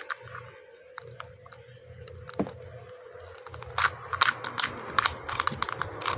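Small plastic puzzle-cube pieces being handled, giving a scatter of sharp clicks and crackles that get busier about two-thirds of the way in, over a faint steady hum.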